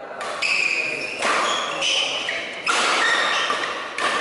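Badminton rally: a shuttlecock struck back and forth by rackets, four sharp hits about a second to a second and a half apart, each ringing on in the hall's echo over spectator noise.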